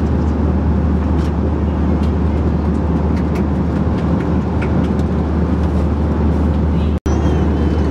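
Steady cabin noise of an Airbus A321 in flight: a constant airflow rush over a low engine drone, with a few faint clicks. The sound drops out for an instant near the end.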